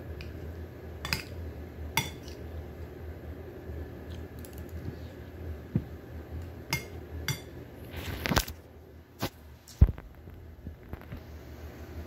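Metal cutlery clinking and scraping on a plate during eating: scattered short clicks, with a longer scrape a little after 8 s and a louder knock just before 10 s. A steady low hum runs underneath.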